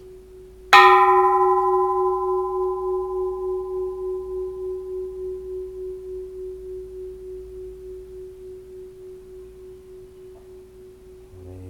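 Bronze Japanese Buddhist temple bell struck once lightly, a bit under a second in, then left to ring. The bright upper overtones die away within a few seconds. The deep main tone hums on, fading slowly and wavering in an even pulse of two or three beats a second.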